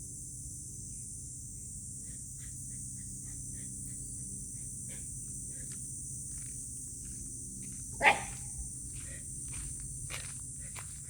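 A Shiba Inu dog gives a single short bark about eight seconds in, with light tapping around it and a steady high hiss throughout.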